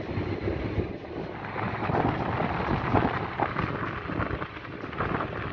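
Car driving, with uneven road rumble and wind buffeting the microphone.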